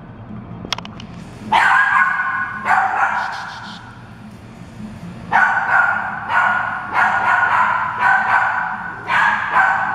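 Dogs barking repeatedly in short, sharp barks: a few barks about a second and a half in and near three seconds, then a long run of barks from about five seconds on.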